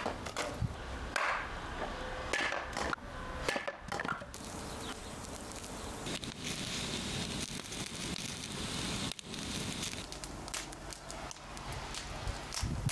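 Firewood being split with an axe on a chopping stump: several sharp wooden chops and knocks. From about four seconds in, a wood campfire crackling and hissing.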